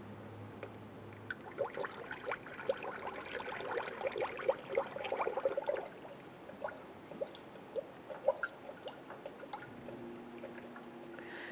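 Coolant being poured into a fill funnel on the radiator filler neck, splashing and gurgling as it drains into the radiator while the emptied cooling system is refilled. After about six seconds the sound thins to scattered gurgles and drips.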